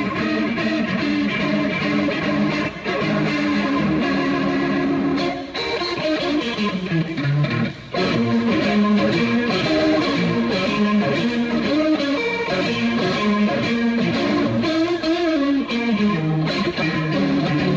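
Electric guitar played through a Fender Vibratone rotating-speaker cabinet: held chords for the first five seconds or so, then a run of single-note lines with two brief breaks.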